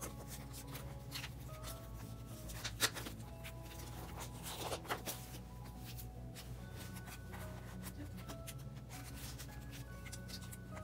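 Soft background music with light plastic rustling and scattered clicks of photocards being slid into binder sleeves; one sharper click about three seconds in.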